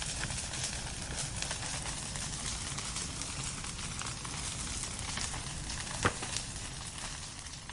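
Wood fire burning in a fireplace, crackling steadily with many small pops over a low rush of flame, and one loud pop about six seconds in.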